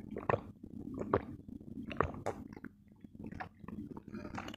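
Close-miked gulping of a cold drink from a metal mug: a few loud swallows about a second apart in the first half, then softer mouth sounds.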